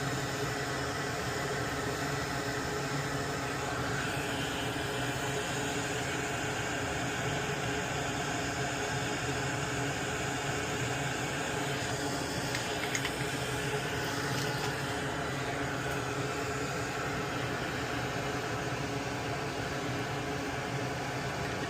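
Steady whir of a small fan or blower motor with a constant hum, with a couple of faint clicks about thirteen seconds in.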